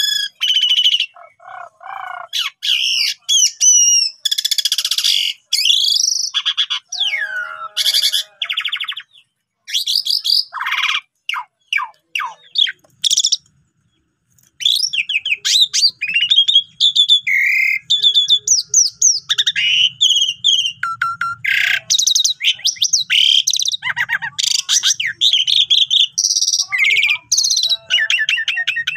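Asian pied starling (jalak suren) in full song: a rapid, varied run of whistles, harsh chatter and clicks, with a short pause about halfway through.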